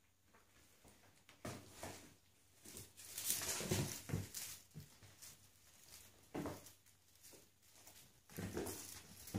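Scuffling, light knocks and rustling of 8-week-old Bengal kittens playing with toys on a hard floor, in irregular bursts, the loudest about three to four seconds in.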